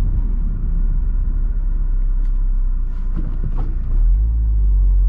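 Honda S2000's JDM F20C four-cylinder engine and road rumble heard from inside the car while driving, with a steadier, louder engine note coming in about four seconds in.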